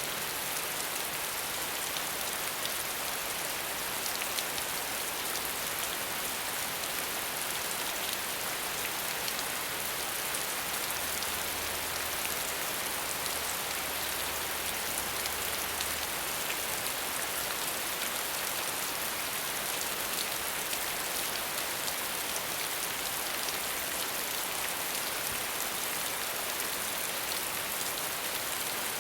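Steady heavy rain falling and pattering on surfaces, a constant even hiss dotted with small drop ticks.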